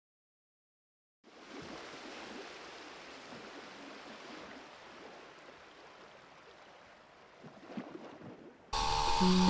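Silence for about a second, then a faint steady rushing noise that slowly fades away. Near the end, electronic background music cuts in suddenly.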